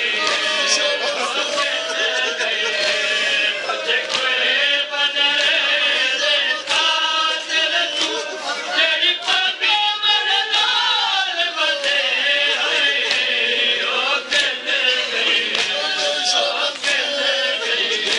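A noha chanted by men's voices in chorus, with chest-beating (matam) strikes keeping the beat.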